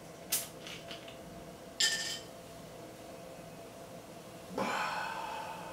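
A plastic bottle of Pepsi Blue twisted open, with a sharp hiss of escaping carbonation and a second short hiss about two seconds in. Near the end the blue cola is poured into a glass, splashing and fizzing.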